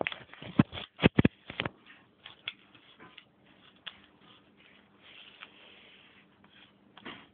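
Quick run of sharp clicks and taps on a hard floor, then sparse fainter ticks.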